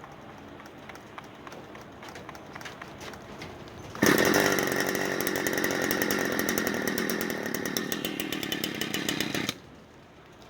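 Two-stroke chainsaw, still cold, running at a low idle, then revved hard at full throttle about four seconds in for five or six seconds before the sound drops away suddenly.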